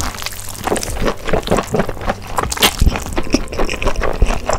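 Close-miked mouth sounds of a woman slurping and chewing a big mouthful of thin, saucy noodles: a dense, irregular run of wet smacks and clicks.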